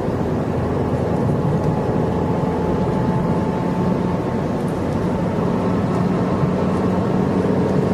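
Interior of a 2012 Ford Fiesta driving at a steady speed: even road and tyre noise with the 1.6-litre four-cylinder engine's steady drone underneath.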